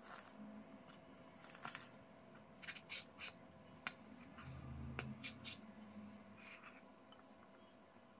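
Faint scraping and clicking of a metal utensil stirring water into flour in a glass bowl, with scattered short strokes against the glass. A brief low hum comes in about four and a half seconds in.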